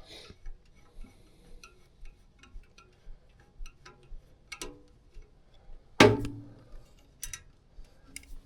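Small scattered clicks and taps of tools and parts being handled at a furnace's gas valve, with one louder knock about six seconds in.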